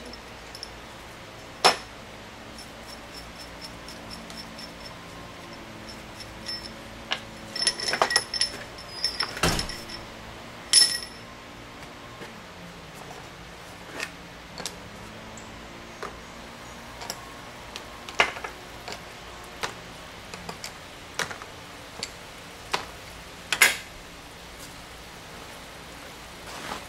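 Galvanized steel bolts, nuts and pliers clinking and knocking against each other and the wooden workbench as they are handled and set down: scattered sharp metallic clicks, busiest about a third of the way in, with a few louder single knocks.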